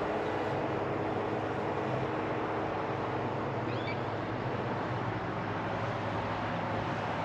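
Steady rumble and hum of a stopped freight train's diesel locomotives idling, mixed with distant road traffic. A short bird chirp sounds about four seconds in.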